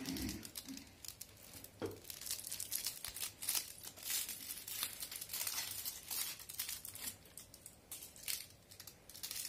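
Foil wrapper of a Toblerone chocolate bar being peeled open by hand, crinkling and tearing in many short, irregular crackles.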